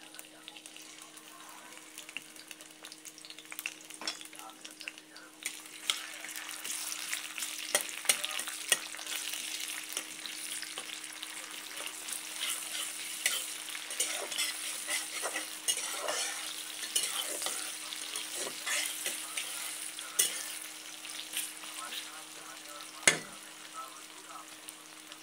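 Food sizzling in a frying pan while being stirred, with many small scraping clicks; the sizzle grows louder about six seconds in. A sharp knock sounds near the end, over a steady low hum.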